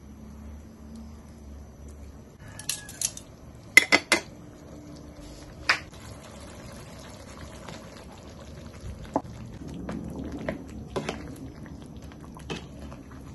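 Chicken legs simmering in tomato sauce in a non-stick frying pan, a steady bubbling. Metal tongs and a ladle knock and scrape against the pan in scattered sharp clicks, loudest in a quick cluster about four seconds in.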